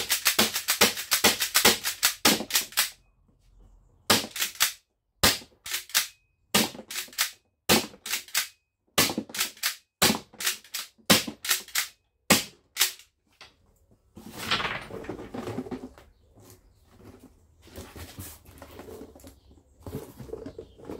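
Airgun fired rapidly: a fast string of sharp shots at about five a second, then shorter bursts of two or three shots. After about two-thirds of the way through the shots stop and softer rattling and clatter follow.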